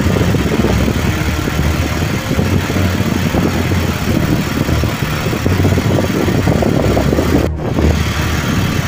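Large electric fan running: a loud, rough motor-like rumble with a throbbing low end and rushing air. It breaks off for a moment near the end.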